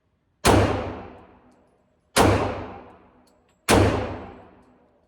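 Three shots from a .45 ACP pistol, fired at a slow steady pace about a second and a half apart, each with a long echoing tail.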